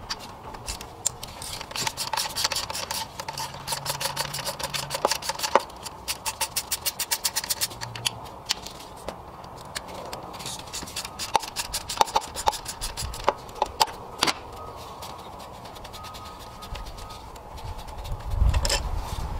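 Hand ratchet clicking in several quick runs as a Torx bolt is backed out, with scattered taps and scrapes of the tool on metal.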